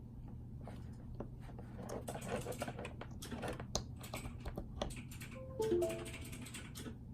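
Irregular clicking and tapping of a computer keyboard, with a brief electronic chime of a few falling notes about five and a half seconds in, over a steady low hum.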